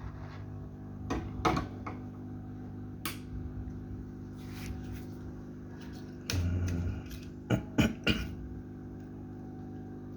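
Small clicks and knocks from a phone and hand tools being handled during disassembly, over a steady low hum, with a short low buzz partway through.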